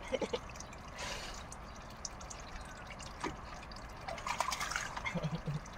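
Water trickling steadily from a pipe into a steel basin, with a flurry of small splashes near the end as a crow bathes in a basin of water.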